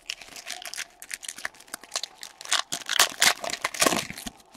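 Plastic wrapping of sports-card packs crinkling and tearing in short, irregular bursts as the packs are handled and opened.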